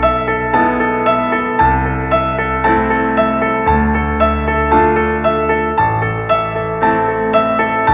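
Background music: gentle piano or electric piano playing a repeating pattern of notes over bass notes that change about every two seconds.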